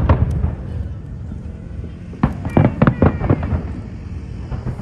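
Aerial fireworks bursting in a large display. A loud bang right at the start, then a rapid cluster of bangs and crackles about two seconds in that lasts about a second, with rumble between.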